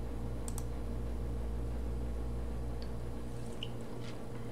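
A few faint computer mouse clicks over a steady low hum that pulses about three times a second.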